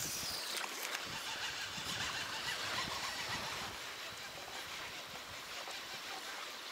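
Steady rushing noise of wind and small choppy waves, easing a little partway through.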